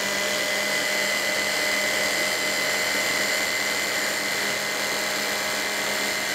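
Electric stick blender on a mini chopper bowl running steadily at one even pitch, its blades chopping basil leaves and garlic into pesto.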